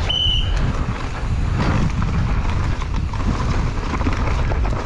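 Wind buffeting the camera microphone of a mountain bike ridden fast down a dirt trail, with tyre noise and the bike's rattle underneath. A brief high-pitched squeal sounds about a quarter second in.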